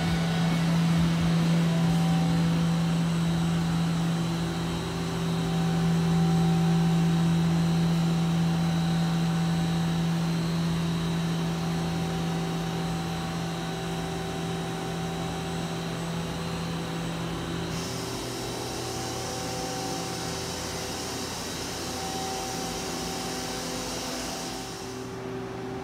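Steady machine hum with a constant low drone, from a powered-up Mazak CNC turning center standing idle. A high hiss comes in about two-thirds of the way through and cuts off near the end.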